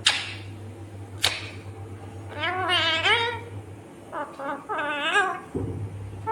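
Indian ringneck parakeet calling: two sharp, short squawks in the first second and a half, then warbling calls with a wavering pitch around the middle and again near five seconds. A steady low hum runs underneath.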